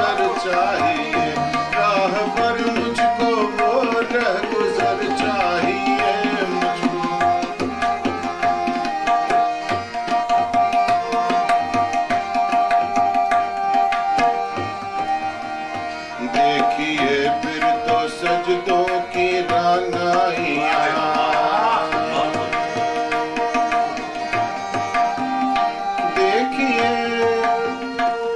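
Harmonium and tabla playing together in Indian light-classical style, the harmonium holding sustained tones under the melody while the tabla keeps a steady rhythm, with a man singing over them at times.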